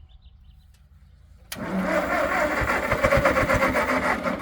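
Ford 650 tractor engine cranked by the starter with its ignition timing being adjusted, starting suddenly about a second and a half in and running in a regular pulsing rhythm for about three seconds before it stops. The try is a good sign for the timing change.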